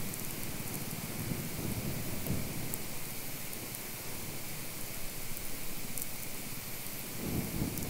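Electromagnetic field picked up by a Lom Priezor EM receiver: a steady static hiss and crackle with faint thin high tones and scattered clicks, and low rumbling swells about two seconds in and again near the end.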